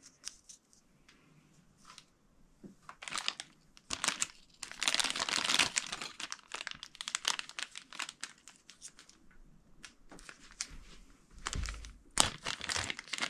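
Small clear plastic parts bags crinkling and rustling as they are handled and opened, in irregular bursts that are loudest about five seconds in, with another flurry near the end.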